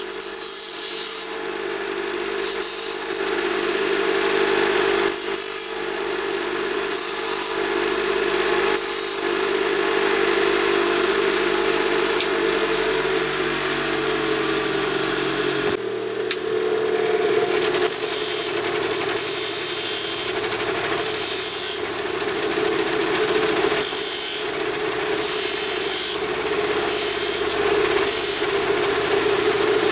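Bench grinder running with a steady hum while a strip of HSS hacksaw blade is pressed against the spinning wheel again and again, each touch a short hissing grind of steel. About halfway through the sound changes and the grinding touches carry on against a second grinder's finer wheel.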